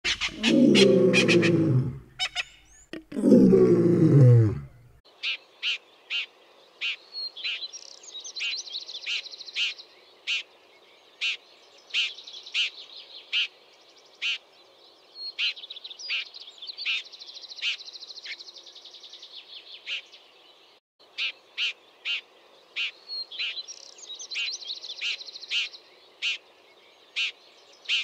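Two loud sounds falling in pitch open the first five seconds. Then a red-backed shrike calls: short sharp notes repeated more than once a second, broken three times by a couple of seconds of rapid chattering.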